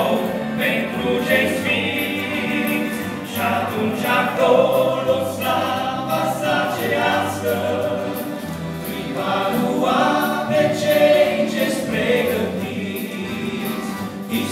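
Gospel band playing live through a hall's loudspeakers: men singing together over electric guitar, bass guitar, keyboard and accordion.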